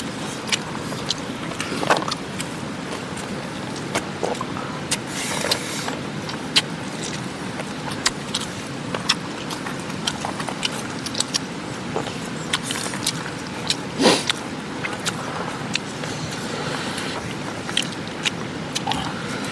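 Steady rushing of a mountain river, with scattered sharp clicks and knocks through it and one louder knock near the end.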